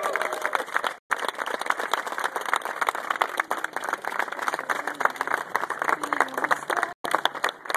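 A crowd of guests applauding with steady, dense clapping and a cheer or two just at the start. The sound cuts out completely for an instant twice.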